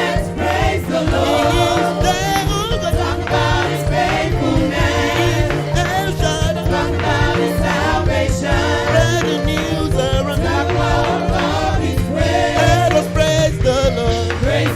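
Live gospel praise music: several voices singing in Yoruba-style call-and-response over a band with bass, keyboard and drums.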